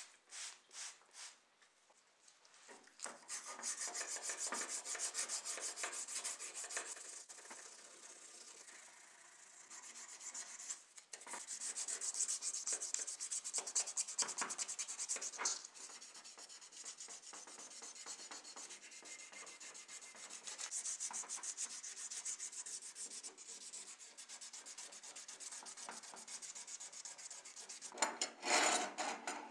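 Bare die-cast metal model car body being rubbed rapidly back and forth by hand with a small abrasive pad or cloth: a dense, scratchy rubbing that starts a few seconds in, swells and eases, and grows louder again near the end.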